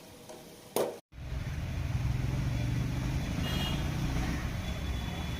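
Mahindra Scorpio S5's diesel engine idling steadily, coming in about a second in, with its DEF dosing pump and urea-clogged injector just cleaned and refitted.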